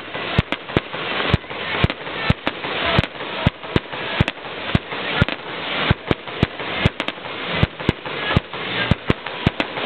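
Aerial fireworks bursting in a rapid, irregular string of sharp bangs, about two to three a second, over a steady rushing noise.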